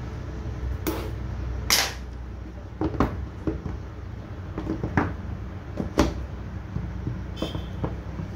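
Cardboard tablet box being unboxed by hand: the outer sleeve slid off and the lid lifted, giving a series of sharp cardboard knocks and taps against the table, with a short scrape near two seconds in as the loudest.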